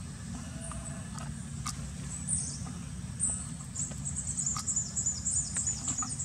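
Small birds chirping high-pitched in quick runs, thickest in the second half, over a steady low rumble, with a few faint clicks.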